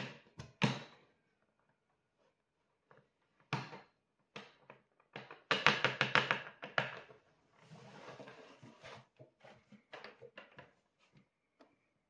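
Power plug pushed into a wall socket with a couple of sharp clicks, then scattered knocks and shuffling as the cord and canister vacuum cleaner are handled on a wooden floor; a dense run of knocks about halfway through is the loudest part. The vacuum motor is not running.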